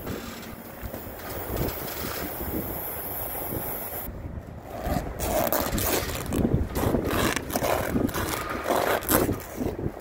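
A cotton rag dragged back and forth across the worn, eroded steel edge of an excavator bucket's mouldboard. The edge is sharp enough to cut it, and irregular scraping and tearing strokes start about four seconds in.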